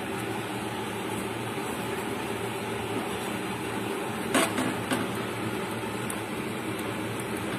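Dosa cooking in a hot pan on a gas stove, heard as a steady hiss with a low hum under it. There is a single sharp click about four and a half seconds in.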